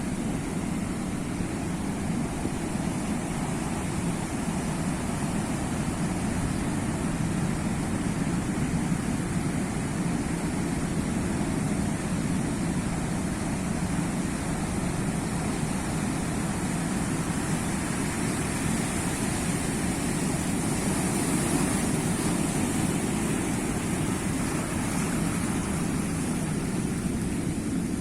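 Sea surf, a steady rushing wash of waves that swells a little around two-thirds of the way through.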